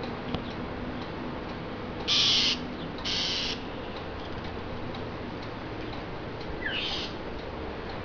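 Starling giving harsh, rasping calls: two loud bursts about a second apart, then a fainter one later on.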